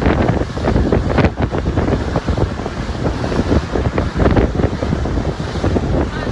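Wind buffeting the microphone in strong, irregular gusts, over the rush of sea water.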